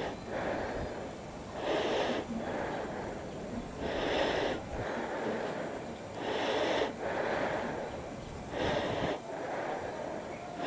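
A person breathing close to the microphone, about one breath every two seconds, over a steady background hiss.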